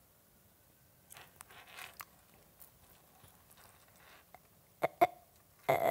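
Small clicks and rustles of metal charms and beads being handled while a charm is fitted onto a charm bracelet, with two sharper clicks near the end.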